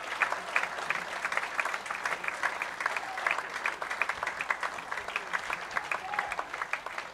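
Audience applauding after a song, dense clapping that slowly thins and quietens toward the end.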